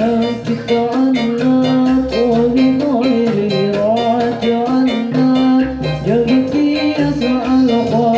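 Hadroh ensemble: men singing an Islamic devotional song over quick, steady strokes of hand-struck rebana frame drums.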